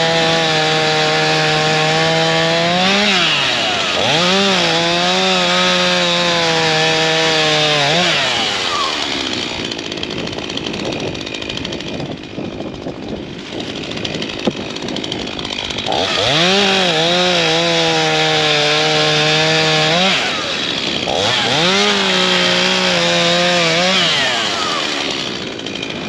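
STIHL MS251 two-stroke chainsaw cutting through dead wood at full throttle, engine pitch steady under load with a brief dip and recovery about three seconds in. Around a third of the way through it drops to a lower, rougher run for several seconds between cuts, then goes back to full throttle for two more cuts, with a short dip between them, and eases off near the end.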